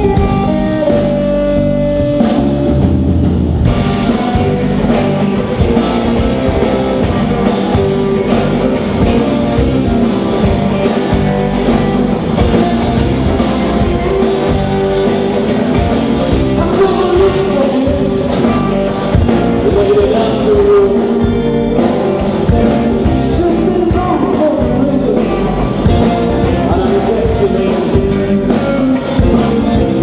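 Live blues-rock band playing: electric guitar over drums and bass, with a man singing through the latter half.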